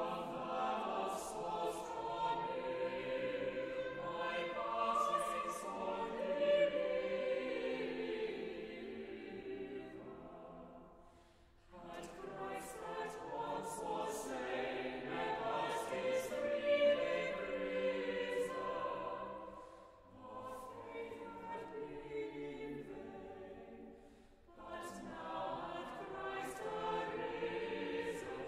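A choir singing, in phrases broken by short pauses.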